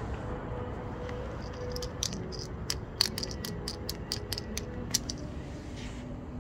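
Steady low urban background rumble, with a quick run of about eighteen sharp light clicks and taps starting about two seconds in and lasting about three seconds.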